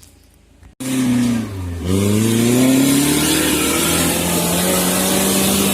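Suzuki Jimny 4x4 engine revving hard: it cuts in suddenly just under a second in, dips in pitch, then climbs at about two seconds in and holds at high revs.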